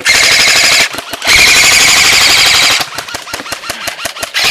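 Airsoft guns firing on full auto: a burst of about a second, then a longer burst of about a second and a half, then a run of separate rapid shots, and another burst starting near the end.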